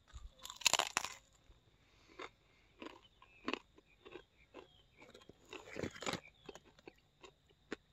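A person biting into a crispy fried sweet potato slice, with a loud crunch about half a second in, followed by scattered smaller crunches as it is chewed.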